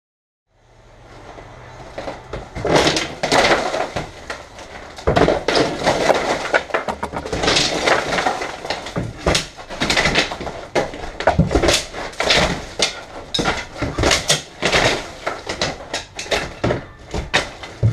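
Old plaster-and-lath ceiling being torn down. Irregular crashes and clatter of plaster chunks and wooden lath strips falling onto a debris-covered floor, starting about half a second in.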